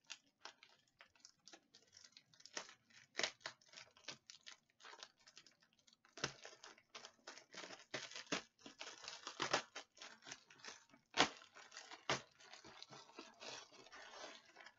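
Packaging being torn open and crinkled by hand: irregular crackles and sharp rips, busiest in the middle stretch.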